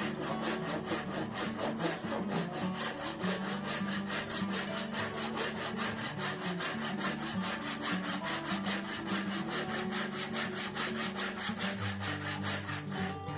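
Backsaw cutting a dovetail kerf in an aspen board by hand, in quick, even rasping strokes at about five a second. The strokes stop near the end.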